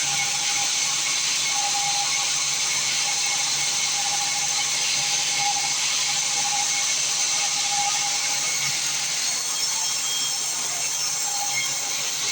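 Sawmill bandsaw running: a loud, steady hiss with a steady mid-pitched tone and a low hum underneath.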